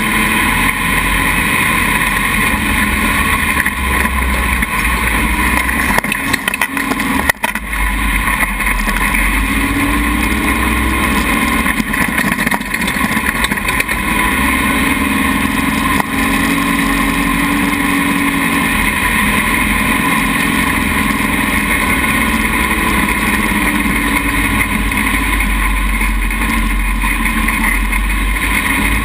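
Dune buggy engine running hard while driving over sand dunes, its pitch rising and falling with the throttle. There is a brief dip and a couple of knocks about seven seconds in.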